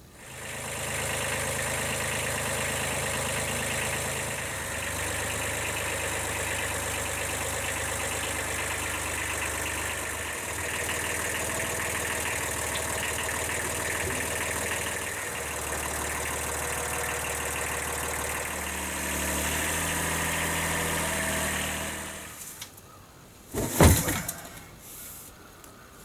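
Kubota B7100 compact tractor's three-cylinder diesel engine running while its front loader works, the engine note stepping down and back up a few times. The engine fades out near the end, followed by one loud sharp knock and a few lighter knocks.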